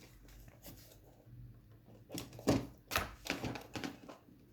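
Small tools being picked up and handled on a work mat, giving scattered light clicks and taps, with a quick run of knocks in the second half.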